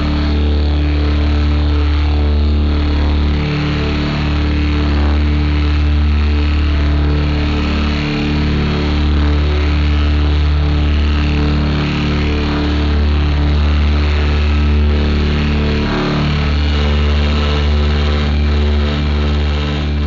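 Fuzz-distorted amplifier feedback: a loud, steady low buzzing drone with stacked overtones and hiss, dropping out briefly a few times.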